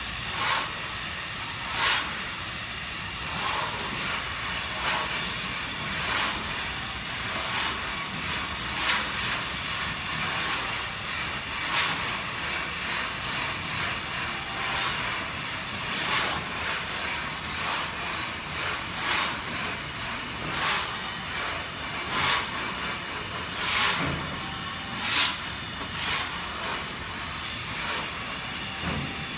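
Brazing torch flame hissing steadily on a copper air-conditioner branch pipe joint, with short sharp clicks every second or two.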